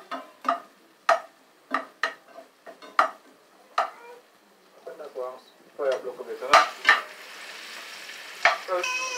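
A spoon stirring vegetables in a frying pan on a gas stove, striking and scraping the pan in quick, irregular strokes for the first few seconds. From about the middle on, the frying food sizzles steadily, and a few short pitched sounds come over it.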